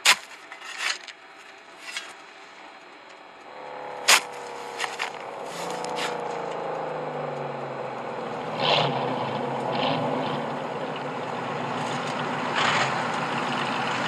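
Several sharp metal clanks and scrapes as gear is handled on a work truck, followed by a classic Ford Mustang's V8 engine coming up along the road, its pitch sliding as it nears and its running growing louder toward the end.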